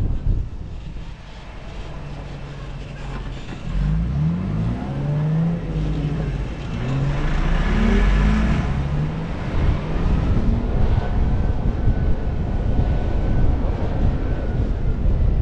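Toyota Land Cruiser 70-series 4x4 engine driving, its pitch climbing in several short rises as it accelerates, loudest about eight seconds in, over a steady low rumble.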